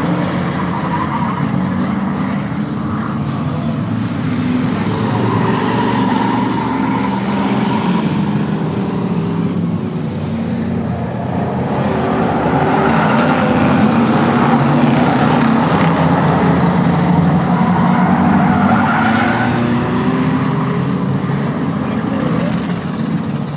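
A pack of race cars and pickup trucks running at racing speed on a short oval, many engines revving and overlapping. The sound swells and stays loudest through the middle as the pack passes close.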